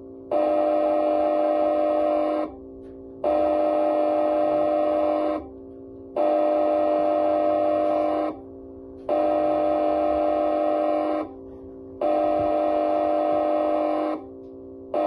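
Deep-toned air horn signal sounding in repeated steady blasts of about two seconds, one every three seconds or so. Between the blasts a quieter, lower tone carries on for under a second.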